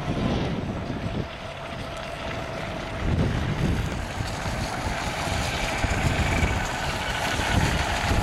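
Radio-controlled model boat's motor giving a thin, steady whine, with gusts of wind rumbling on the microphone.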